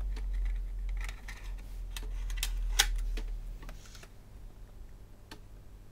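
Plastic clicks and knocks of a MiniDisc cartridge being slid into the opened mechanism of a Sharp MD-MS702 portable MiniDisc player and pressed down into its holder. A run of clicks over the first three seconds, the loudest near the end of them, then a single click a couple of seconds later.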